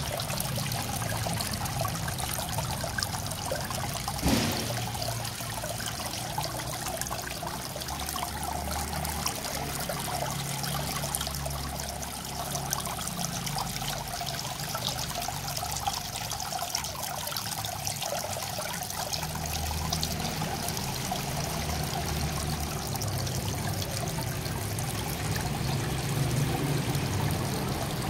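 Water trickling and splashing steadily down a rockery water feature, with a low hum coming and going underneath and a single knock about four seconds in.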